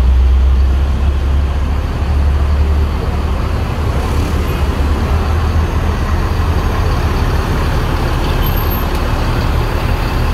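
Diesel bus engine running close by, a deep rumble that is heaviest over the first few seconds and then settles, with road traffic around it.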